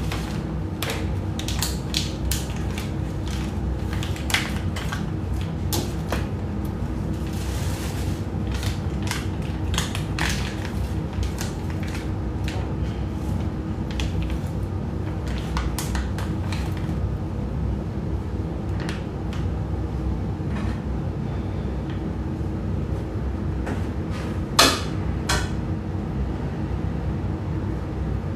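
Kitchen work: utensils and cookware clicking, knocking and clattering over a steady low hum, with one sharp knock near the end.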